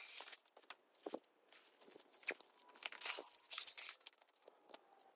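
Faint scattered rustles, crackles and taps of peel-and-stick vinyl planks being handled and pressed down onto the floor by hand.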